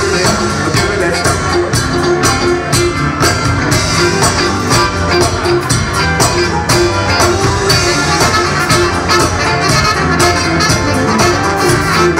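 A live band playing loud, upbeat music: electric guitars and a drum kit keeping a steady beat, with the full band sounding together.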